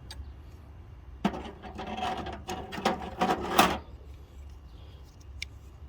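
Small metal hand tools clinking and clattering as they are handled and set down, a run of clicks and knocks from about a second in until nearly four seconds, then only a couple of faint ticks.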